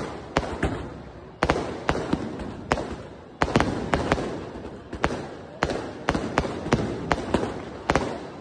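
Aerial fireworks going off in a rapid, uneven run of sharp bangs and pops. Louder bursts come about a second and a half in and again after about three and a half seconds, each trailed by crackling.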